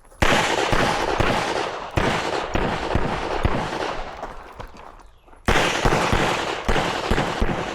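Semi-automatic service pistol firing a string of shots, each a sharp crack with a trailing echo. Roughly halfway through there is a pause of about a second and a half, then a second run of quick shots.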